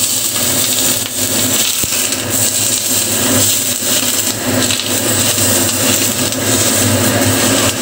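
Smoking-hot oil poured from a wok onto steamed fish topped with green onions, sizzling in a steady hiss, over a steady low hum.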